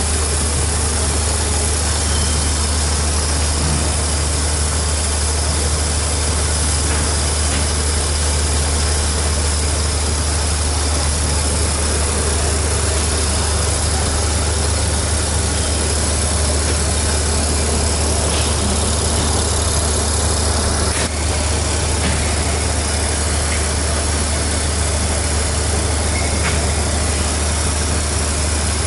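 A standing train's engine idling: a steady, unchanging low hum, with a single light knock about three quarters of the way through.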